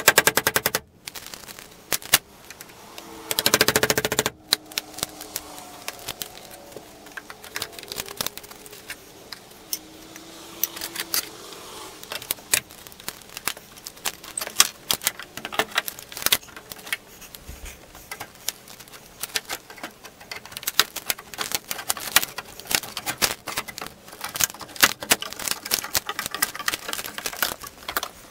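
Hand tools working a wooden window frame: two quick runs of rapid sharp tapping near the start, then scattered clicks, taps and scrapes as a chisel and a small flat pry bar dig at the sill trim and its nails.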